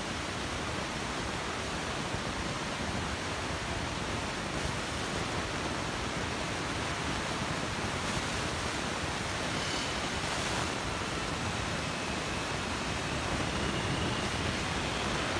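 New York City subway train on the far track of an underground station: a steady rushing rumble that grows a little louder near the end as the train starts to pull out, with a faint high motor whine.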